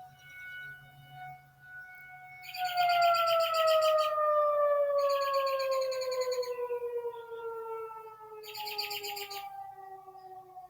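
Outdoor civil-defense tornado siren holding a steady tone, then winding down from about two and a half seconds in, its pitch falling slowly as it shuts off at the end of a test. The wind-down is louder than the steady tone. A bird calls three times over it in short, rapid high trills.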